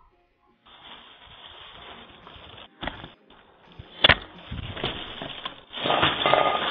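Doorbell camera's thin, hissy porch audio: faint background noise with a few knocks and thuds, the sharpest about four seconds in, as the front door swings open and a man handles a case of bottled water.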